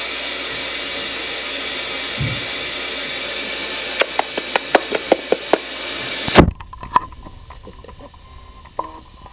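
A steady, loud rushing hiss that cuts off suddenly with a thump about six seconds in. For the two seconds before that, a quick run of sharp clicks and taps from puppies' claws on the hardwood floor. Then only a few faint clicks.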